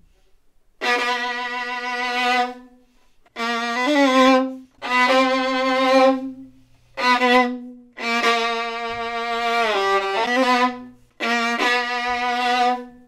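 Solo violin bowed in its low register: a series of long, loud sustained notes with short breaks between them, some sliding from one pitch to another.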